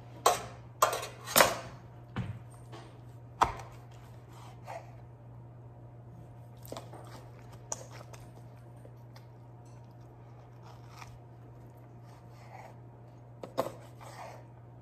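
Chef's knife cutting through a rack of smoked pork ribs on a plastic cutting board: a handful of sharp knocks as the blade comes down on the board in the first few seconds, then quieter slicing and crunching through the crust, with two more knocks near the end.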